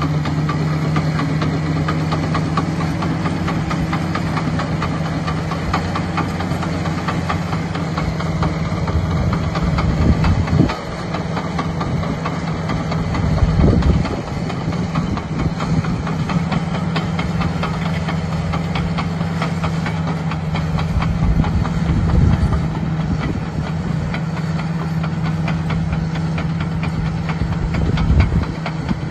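Caterpillar D6R crawler dozer's diesel engine running steadily under load while its steel tracks clatter, as it pushes dirt with the blade. The sound swells briefly a few times.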